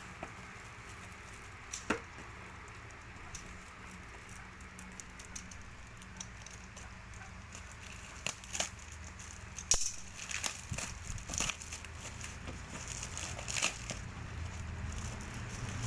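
Packaging being handled and opened: scattered clicks, taps and crinkles, busier in the second half.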